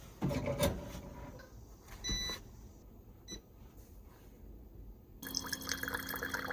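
Baby formula being prepared: a short electronic beep from an appliance about two seconds in, then from about five seconds a machine runs with a steady hum while liquid pours and fills.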